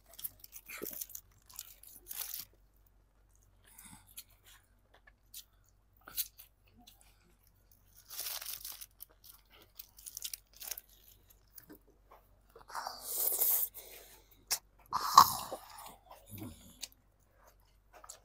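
Close-miked mukbang eating: crisp crunching bites into crispy fried chicken and wet chewing, in scattered bursts with the loudest crunches about 13 and 15 seconds in.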